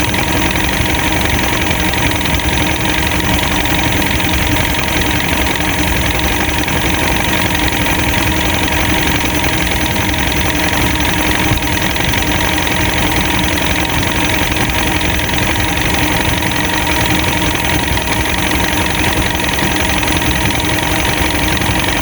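Boat motor idling steadily at a constant level.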